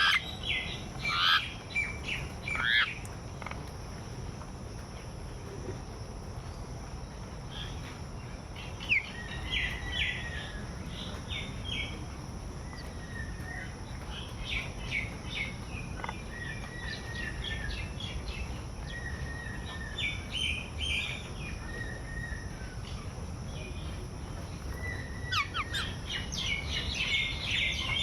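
Small birds chirping and calling: quick runs of short high chirps and a few rising whistled notes, busiest at the start and near the end, over a steady low background rumble.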